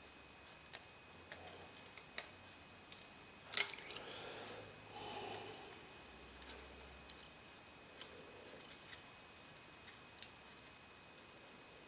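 Scattered small clicks and taps of tools and tiny parts on an iPhone 4 being put back together, with one sharper click about three and a half seconds in followed by a short rustle.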